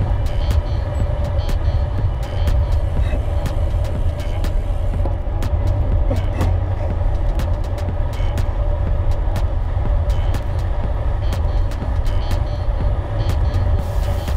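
Riding noise of a gravel bike: heavy wind rumble on the bike-mounted microphone over steady tyre roll, with frequent sharp ticks and clicks.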